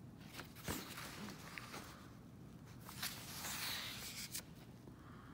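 Paper pages of a paperback coloring book being turned by hand: two bouts of rustling and crinkling, one about half a second in with a few sharp clicks and another about three seconds in.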